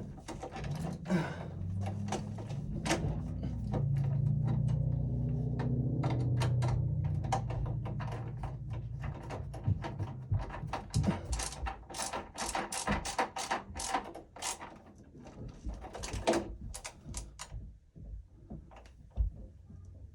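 Hands working in a home electrical panel: repeated clicks, knocks and rattles of wires and metal hardware being handled, with a low steady hum through the first half.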